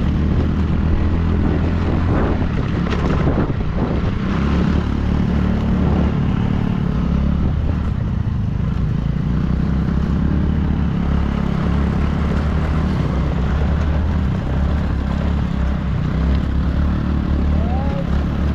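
A vehicle engine running steadily on the move, with a constant low hum and road and wind noise.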